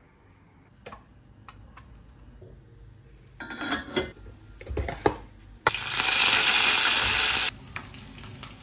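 Stovetop cooking: metal cookware and a steel lid clinking and clattering, then a loud sizzle of food in a hot pan for about two seconds that cuts off suddenly, followed by a softer frying sizzle.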